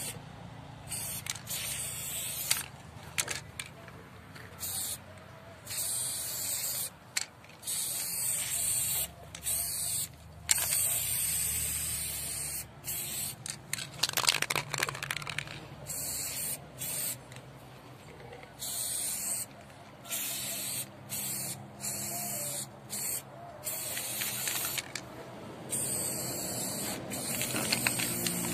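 Aerosol spray paint can hissing in many short and longer bursts, each cut off sharply, as graffiti paint is sprayed in strokes.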